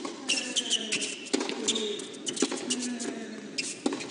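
Tennis rally on an indoor hard court: sharp racket-on-ball strikes about once a second, with tennis shoes squeaking on the court between shots.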